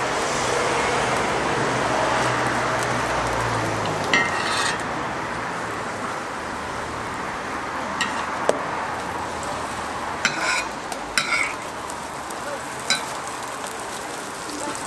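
Food frying in hot oil, a steady sizzle, with several short sharp metal clinks and scrapes of a cooking utensil on the pan scattered through.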